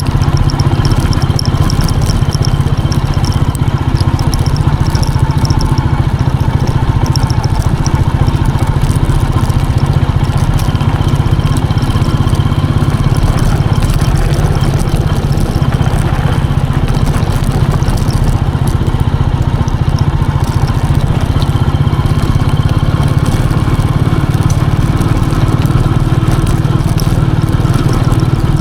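Royal Enfield Meteor 350's single-cylinder engine running steadily while the motorcycle is ridden, its sound low and even throughout.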